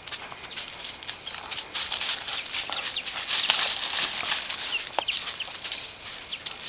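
Young chicks peeping in short, high, falling cheeps over a steady hiss that grows louder about two seconds in.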